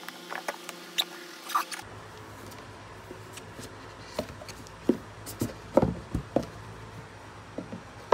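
Cardboard iPad Air box being handled and opened: scattered light taps, scrapes and rustles of fingers on the card, with a cluster of louder scrapes and knocks in the second half as the lid slides off the base.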